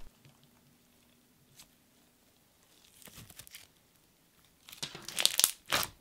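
Clear slime with foam beads being stretched and pressed, giving crackling bubble pops. The pops are faint at first and come in a loud quick cluster near the end.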